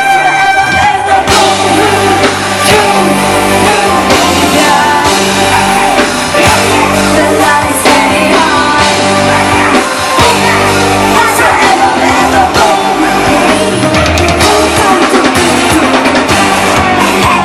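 Loud pop-rock music amplified over a live sound system, with a woman singing over the band.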